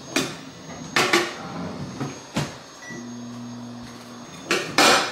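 Microwave oven in use: knocks and clunks of its door and a dish, a short beep, then the oven running with a steady low hum for about a second before a loud clatter near the end.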